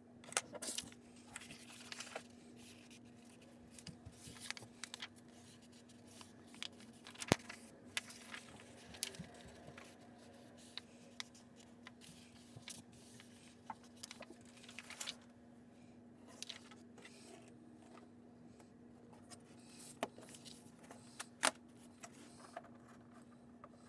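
A sheet of paper being handled, bent and slid on a desk, rustling and scraping faintly in short bursts, with a few sharp taps; near the end a plastic ruler is set down on it. A steady low hum runs underneath.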